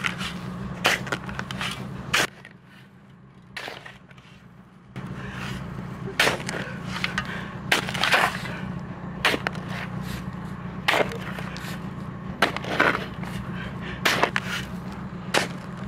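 A long-handled digging tool striking hard, gravelly ground over and over: irregular sharp knocks and scrapes over a low steady hum. Both fall away for a few seconds about two seconds in, then start again.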